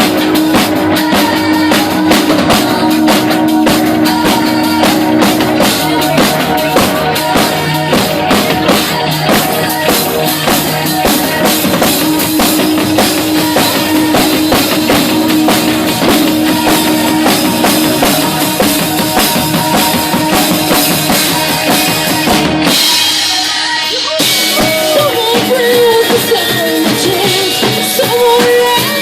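Instrumental passage of a song, with a drum kit keeping a steady beat under the band. About 23 seconds in the low end drops out briefly, then the band returns with a wavering lead melody.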